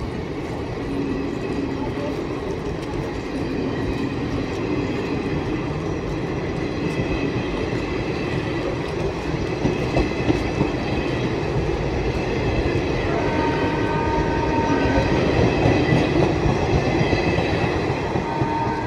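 Indian Railways ICF passenger coaches of an express pulling out of a station, rolling past close by with a dense rumble and clatter of wheels on the rails that grows louder. Thin steady high tones join in about two-thirds of the way through.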